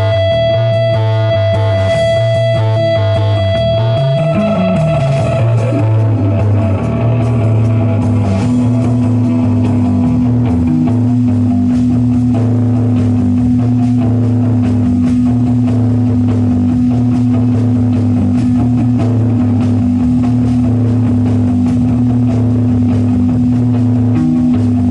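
Live rock band playing a psychedelic jam on electric guitar, bass and drums. A held guitar note fades out about five seconds in, and a steady low drone takes over a few seconds later, over a pulsing bass line.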